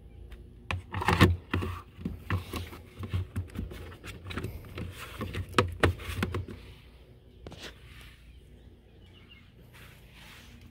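Irregular knocks, thumps and rustling of someone moving about a boat deck, thickest from about a second in to about six seconds, then only a few faint knocks.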